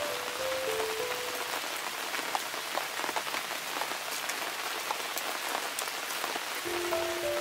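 Burning charcoal in a clay stove crackling and hissing, with a dense spatter of small ticks. A few notes of background melody play at the start and again near the end.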